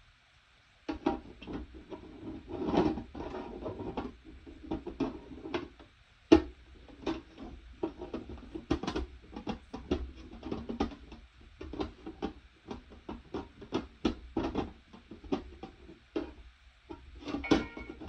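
Rustling, clicks and knocks of things being handled close to the microphone, with one sharp knock about six seconds in.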